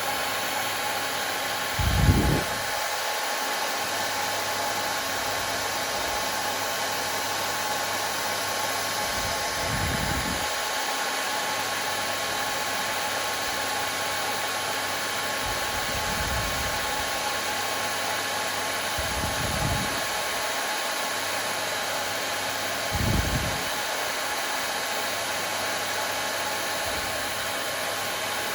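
Hair dryer running steadily, an even rushing noise with a faint steady whine. Five soft low thumps come every few seconds, the first and loudest about two seconds in.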